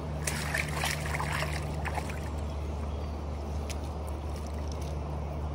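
Steady rush of river rapids, with a low steady hum underneath and a few brief higher sounds in the first two seconds.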